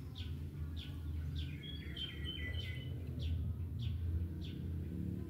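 Birds calling: one repeats a short, down-slurred chirp about twice a second, while a second bird joins about a second and a half in with a brief run of quick whistled notes. A steady low rumble sits underneath.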